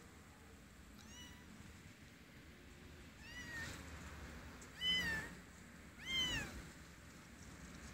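A young kitten meowing four times, short high-pitched meows that rise and fall in pitch, the first faint and the last two loudest.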